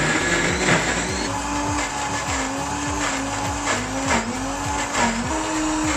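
High-performance countertop blender running at speed, puréeing a thick chickpea and tahini mixture into hummus. The motor's pitch wavers as the thick purée churns, rising a little near the end.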